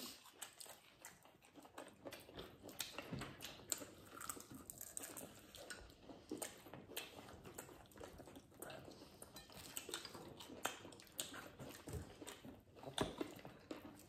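Close-up chewing and biting of crispy breaded fried chicken: a steady run of small crunches, with a couple of sharper bites.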